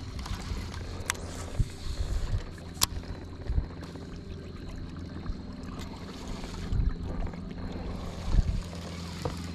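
Steady low hum of a bass boat's electric trolling motor, with a few low bumps and two sharp clicks about a second and three seconds in.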